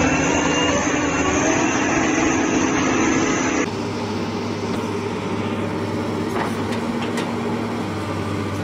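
Dump truck's diesel engine labouring as it climbs a dirt slope. About a third of the way in it switches abruptly to a crawler excavator's diesel engine running steadily, with a few sharp clanks as the machine tracks over the dirt.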